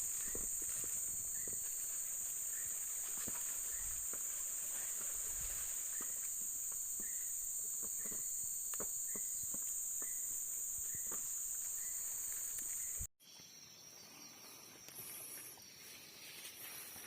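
A steady, high-pitched drone of forest insects, with irregular footsteps on the forest floor and a faint short chirp repeating about every second. The drone and steps cut off suddenly near the end, leaving a much quieter forest.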